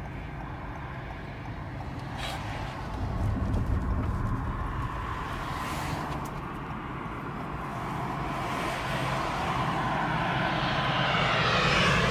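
Low steady rumble of road traffic heard from inside a car's cabin, with the jet noise of an approaching Boeing 787-9 airliner on final approach growing louder over the last few seconds.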